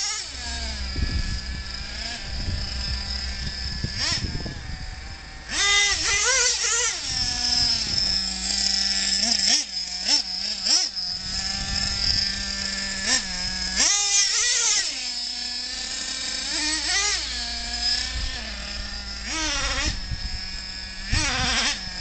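A young child's voice whimpering at intervals, over a steady high-pitched whine.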